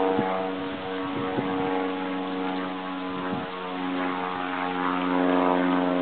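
Propeller aircraft engine droning steadily, growing a little louder near the end.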